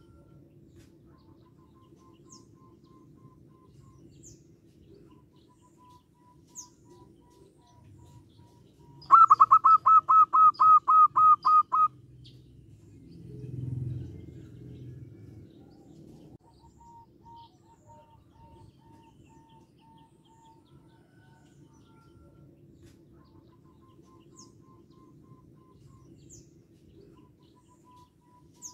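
Zebra dove giving a loud, rapid run of about a dozen staccato call notes lasting some three seconds, about a third of the way in, followed by a brief low rumble. Faint repeated chirps of other birds sound in the background.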